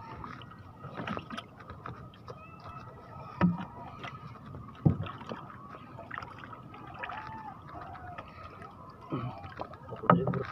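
Scattered knocks and thumps in the hull of a small outrigger fishing boat as longline is hauled and a caught fish is dropped into the bottom, two sharper knocks standing out about three and a half and five seconds in. A faint steady high whine runs underneath.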